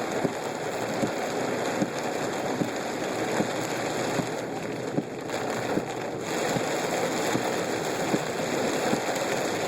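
Heavy rain pelting a car as it drives, a steady dense hiss, with a faint regular knock a little more than once a second.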